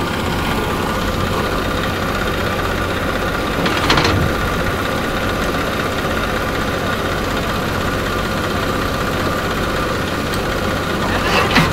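Diesel engines of a tractor and a JCB 3DX backhoe loader running steadily close by. There is a short knock about four seconds in and another near the end.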